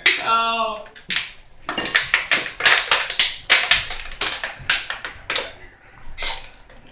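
A short voice sound, then a run of irregular sharp clicks and crackles as a clear plastic bottle is tipped back and a drink is downed from it.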